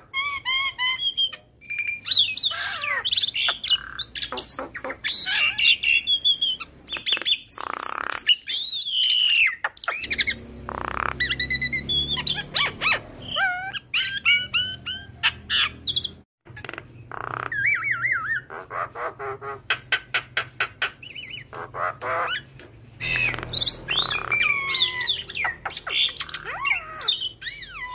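Javan myna (jalak kebo) in full song: a long, varied string of whistled glides, chirps, harsh squawks and fast rattling runs of clicks, with only brief pauses. It is a song packed with mimicked phrases (isian).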